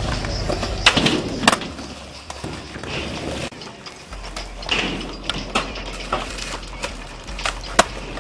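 Skateboards rolling on concrete with a low rumble, and sharp clacks of boards popping and landing: the loudest about a second in, again half a second later, and near the end.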